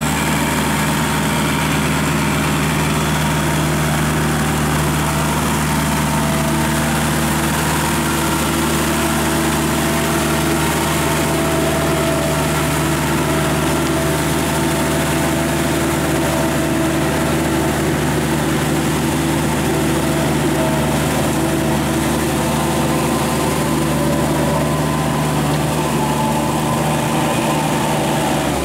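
Kubota L5018 tractor's diesel engine running at a steady speed under load while driving a Maschio rotary tiller through flooded paddy mud.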